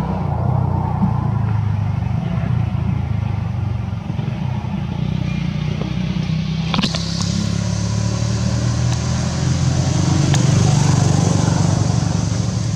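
An engine running steadily at a low, even pitch, with one sharp click about seven seconds in.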